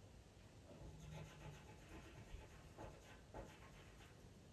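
Faint scratching of a pastel pencil drawing a few short strokes on pastel mat paper, laying in fur stripes.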